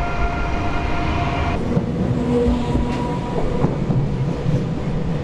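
Passenger train running through a station. A steady chord of several tones cuts off about a second and a half in, leaving the rumble of the train moving along the track.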